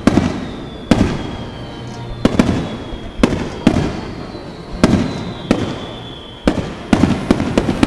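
Aerial fireworks shells bursting in quick succession: about a dozen sharp bangs, one every half second to a second, each trailing off in an echoing rumble.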